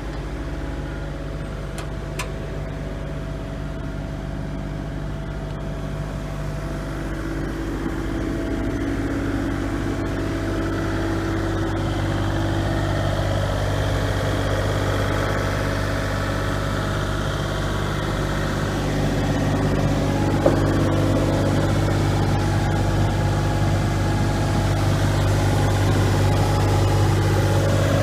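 Kubota KX040-4 mini excavator's diesel engine running steadily. It grows gradually louder, and higher-pitched tones come and go over the engine note.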